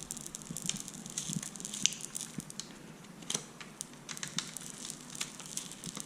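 Faint, scattered small clicks and scratches of a tool working a glued-in diode loose from an instrument-cluster circuit board.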